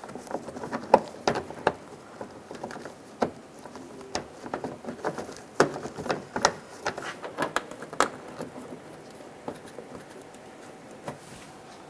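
Plastic inner fender liner and wheel-arch trim being pushed and worked into place by gloved hands: irregular clicks, taps and rustles of plastic, a few sharper knocks among them.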